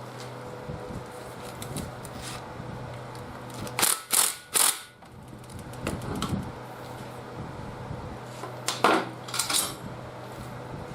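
Hand tools and metal engine parts clinking and knocking during the disassembly of a seized small engine. The sharp strokes come in two short clusters, a few seconds apart, over a steady low hum.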